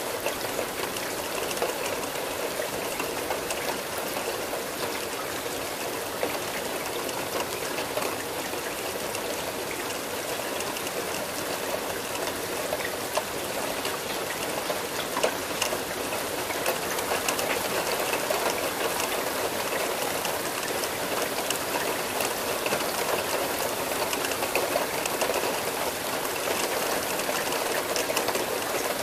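Steady rain falling, a continuous hiss of many small drop impacts with no let-up, growing slightly heavier past the middle.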